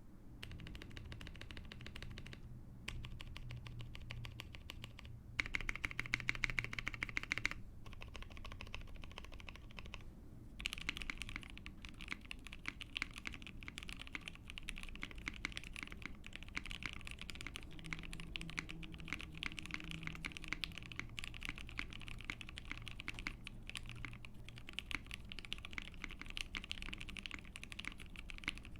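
Fast continuous typing on a custom Ai03 Vega mechanical keyboard: lubed Soho linear switches in a gasket-mounted POM plate, under PBT keycaps. There are a few brief pauses in the first ten seconds and a louder stretch of keystrokes around six to seven seconds in.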